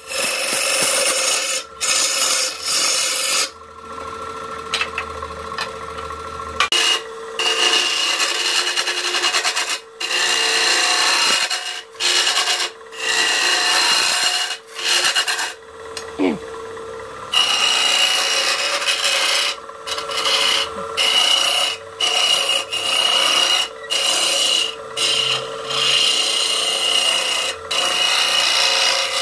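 Wooden bowl blank spinning on an electric lathe while a hand-held steel scraper cuts its face: a loud rasping hiss that stops and starts many times as the tool is lifted and pressed back, over a steady hum.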